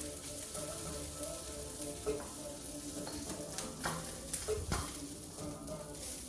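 Browned chicken sizzling in hot oil in a pan as it is moved and lifted out with a utensil, with a few sharp clinks of the utensil against the pan around the middle.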